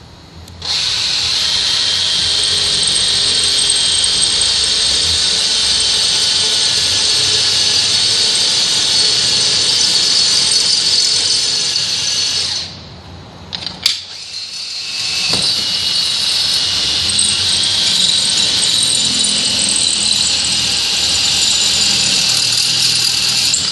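Cordless drill with a 1/4-inch bit boring through the barricade bar's elbow brackets, a steady high-pitched whine as the bit cuts. It stops about 12 seconds in, a sharp click follows, and the drilling starts again a couple of seconds later.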